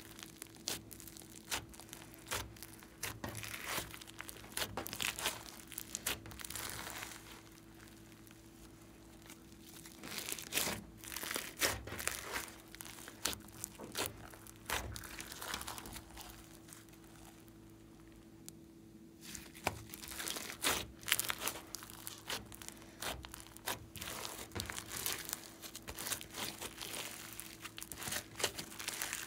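Glossy slime mixed with foam beads being kneaded, squeezed and stretched by hand, giving dense runs of sticky crackles, clicks and small pops, with two short quieter lulls.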